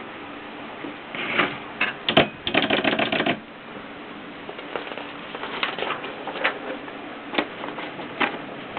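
Mercedes Superba typewriter clacking: a quick run of strokes about one to three seconds in, then scattered single strokes.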